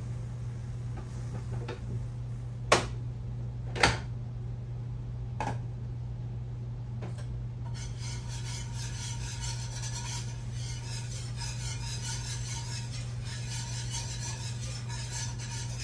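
A metal utensil clinking against a pot on the stove, with two sharp knocks a few seconds in and a couple of lighter taps after, over a steady low hum. About halfway through, a steady high hiss sets in.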